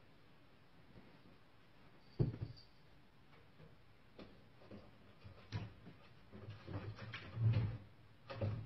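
Wooden dresser drawers knocking and rattling as a cat stands up against the dresser and paws and pulls at them, trying to open them. The knocks are irregular, the loudest about two seconds in and again about seven and a half seconds in.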